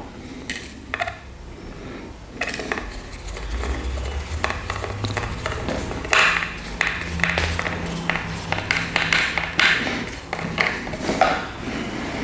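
Screws being driven into a pine-wood learning tower's frame: a run of metallic clicks, clinks and scrapes of the screwdriver and screws against the wood, over a low steady hum through the middle.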